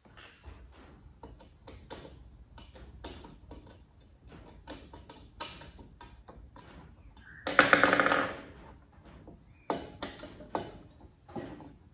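Scattered light clicks and taps of hands and a screwdriver working on the back of a long-arm industrial sewing machine, with one louder clattering sound lasting under a second about seven and a half seconds in.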